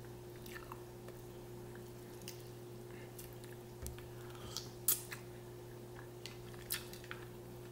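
Person eating seafood with the fingers: scattered short wet mouth clicks and smacks of chewing, the loudest about five seconds in, over a faint steady hum.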